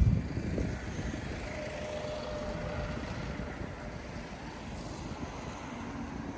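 Street traffic: a vehicle rumbles loudly past right at the start, then a steady mix of road traffic and engine hum.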